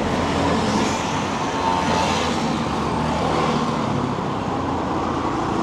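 Steady road traffic: motor vehicles running past, a continuous hum of engines and tyres.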